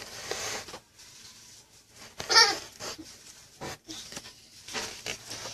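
A young child's brief high-pitched vocal babble about two seconds in, over soft rustling and light clicks of trading cards being handled.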